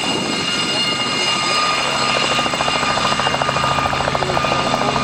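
Aérospatiale Gazelle helicopter hovering close to the ground: a steady high whine from its Astazou turboshaft, with a rapid, even rotor blade chop that grows clear about two seconds in.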